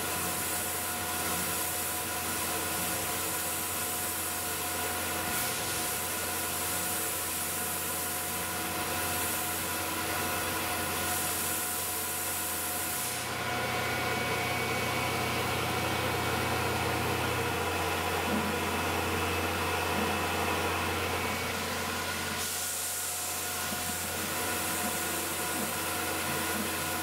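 Tormach 1100 CNC mill spindle running with a small end mill cutting an aluminium part on the rotary fourth axis: a steady spindle whine made of several held tones over a spray hiss. About halfway through, the sound grows a little louder and changes tone for about nine seconds, then settles back.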